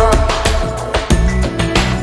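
Instrumental passage of a Punjabi pop song: a steady drum beat over a stepping bass line, without singing.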